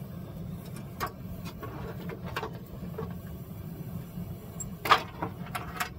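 Steel wolf traps and their chains knocking and clanking against the rim of a barrel of boiling water as they are lifted out. There are scattered sharp clanks, a louder cluster near the end, over a steady low hum.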